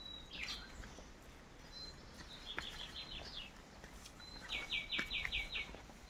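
A small songbird singing: brief high whistled notes, then a quick run of about six repeated notes about four and a half seconds in.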